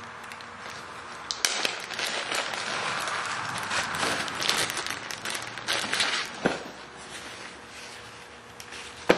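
Crinkling and rustling of a plastic bag as a nylon guitar strap is pulled out of it, densest from about a second and a half in to about six and a half seconds, then lighter. A single sharp click just before the end.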